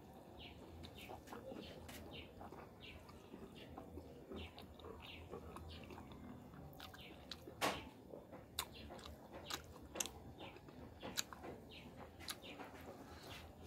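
Close-up chewing and wet mouth sounds of someone eating rice and sauced fish by hand, with many short smacks and clicks; one sharper smack about seven and a half seconds in is the loudest.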